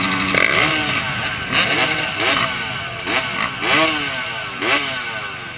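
Several dirt bike engines revving together in short throttle blips, their pitches rising and falling over one another, growing quieter toward the end.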